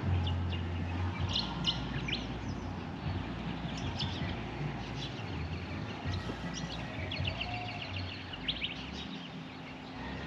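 Birds chirping and calling, many short high chirps over a steady outdoor background, with a low rumble that fades out about a second in.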